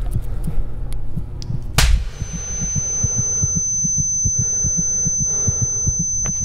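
Layered sound-design soundscape: fast, even low throbbing pulses under a hum, a sharp click about two seconds in, then a steady high-pitched tone that holds from there on.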